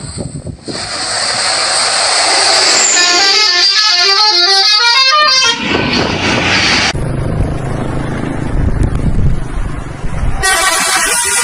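A bus's multi-tone 'telolet' musical horn playing a quick run of alternating notes for about two and a half seconds, a few seconds in. Before and after it there is steady road and engine noise from passing traffic.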